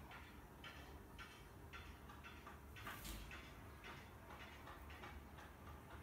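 Near silence with faint, regular ticking, about two to three ticks a second, over a low room hum.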